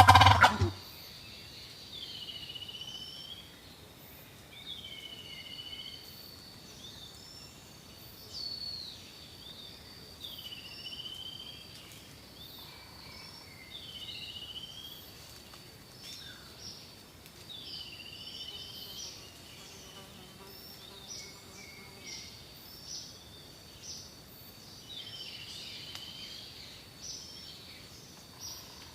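Turkey calls: short curved notes repeated about every two to three seconds, over a steady high tone. A loud beat of music cuts off just as it begins.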